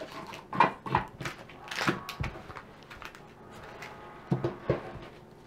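Ribbon spools and lace trim being set down and handled on a wooden tabletop: a series of light knocks and rustles in the first two seconds, then two more knocks a little past four seconds.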